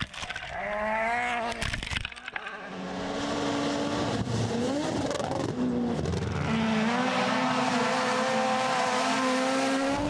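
Rally cars driven flat out on gravel stages. The engine pitch rises and drops through gearshifts, then holds high and steady near the end.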